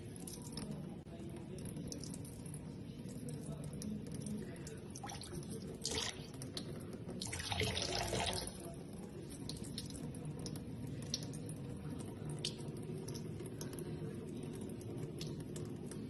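Kitchen faucet running a thin, steady stream of water that splashes over a cat's head and into a stainless steel sink, with small drip-like ticks. The splashing briefly gets louder about six seconds in and again from about seven to eight seconds.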